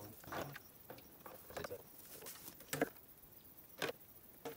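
Scattered light knocks, clicks and rustling from hands working with plastic hoses, fittings and gear, about five irregular strikes with the loudest a little before three seconds in.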